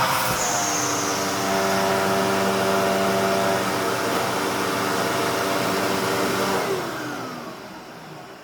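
Hoover Tempo Widepath bagged upright vacuum running steadily. About two-thirds of the way through it is switched off and its motor winds down, the pitch falling as it fades.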